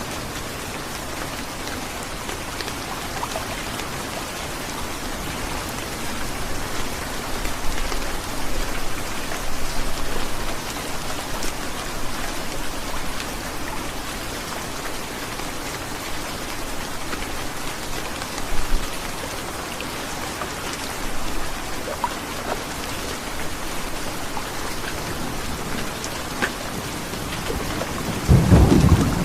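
Heavy rain falling steadily, with scattered sharper drop hits. About a second before the end, a loud low rumble of thunder begins.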